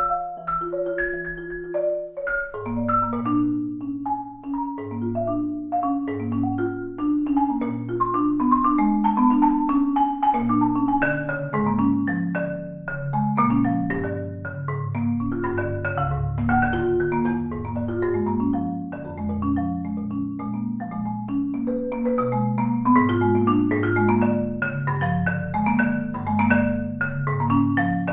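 Korogi concert marimba played solo with four mallets: a dense, fast stream of struck notes across the range, low notes sounding steadily under quicker, higher ones.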